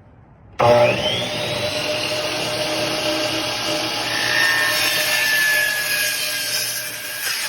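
Electric miter saw motor switched on about half a second in, its whine rising quickly to full speed. It runs loud and steady for about seven seconds, then stops abruptly near the end.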